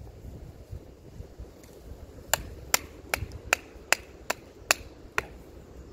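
Wooden baton knocking on the spine of a BPS B1 knife to split a beech log: eight sharp, evenly spaced knocks about two and a half a second, starting about two seconds in.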